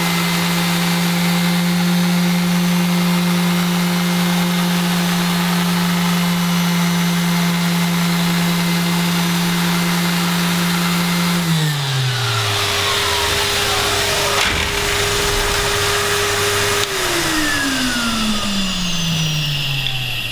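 Random orbital sander with a 120-grit disc running against painted steel, taking the paint back, with a Henry vacuum drawing the dust through its hose. The steady motor hum winds down about 11 seconds in, and a second motor tone falls away near the end as the machines are switched off.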